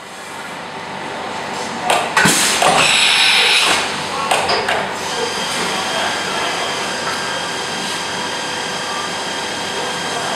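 CNC vertical machining centre milling brass under flood coolant: a steady spindle whine with several fixed tones over the hiss of coolant spray, fading in at the start. A louder stretch of clattering and spray noise runs from about two to four seconds in.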